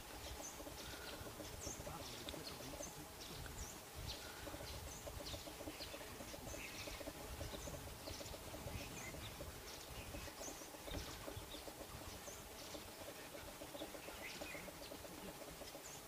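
Faint, scattered chirps and short calls of small forest birds, over a faint steady hum.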